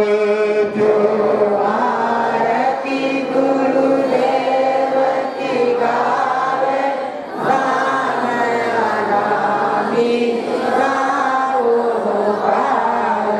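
Devotional chanting sung by a group of voices over musical accompaniment, with a steady low held tone under the singing.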